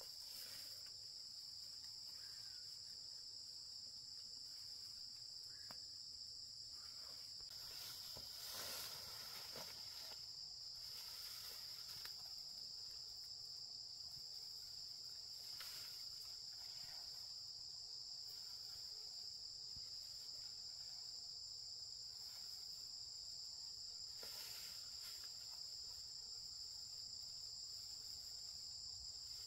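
Steady, high-pitched insect chorus, a continuous even buzz. A few brief, faint rustling noises come through now and then.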